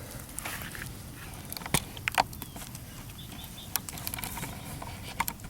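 Campfire crackling: a steady low hiss with a few scattered sharp pops, the loudest pair about two seconds in.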